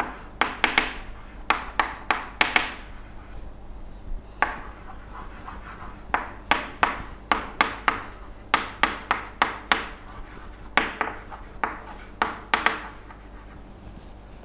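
Handwriting: quick scratchy strokes in bursts, with short pauses between words, over a faint steady electrical hum.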